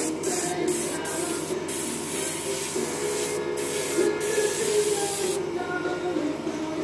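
Airbrush spraying paint with a steady hiss, broken by several short pauses as the trigger is let off, and easing off for the last second or so.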